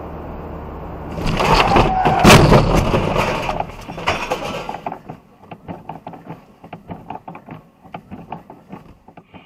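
Car road noise, then about a second in a loud car crash: a heavy impact with crunching, scraping and breaking that lasts a few seconds, followed by scattered small clicks and rattles that die away.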